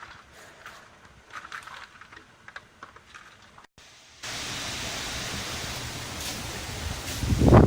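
Typhoon weather: faint scattered patter for the first few seconds, then a steady hiss of wind and driving rain. Near the end a strong gust rises and buffets the microphone with a low rumble.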